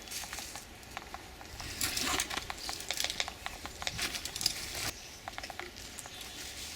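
Rustling with scattered sharp clicks and taps, louder stretches about two seconds in and again around four to five seconds in.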